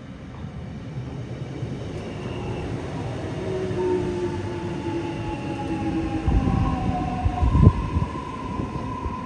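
Korail 371000-series electric multiple unit running in past at close range: traction motors whining in several tones that slide down in pitch as the train slows, over wheel and rail rumble. There are a few heavy low thuds past the middle.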